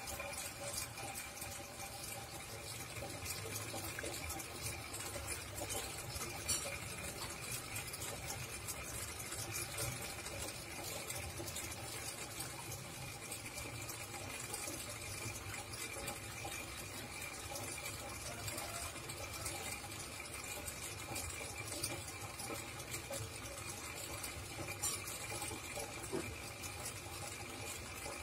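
Steady trickle and bubbling of aquarium water, with a faint constant hum.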